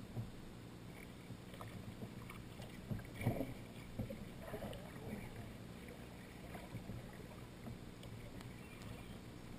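Double-bladed kayak paddle dipping into calm river water, with light splashes and drips from the strokes. A few louder strokes come about three and four to five seconds in.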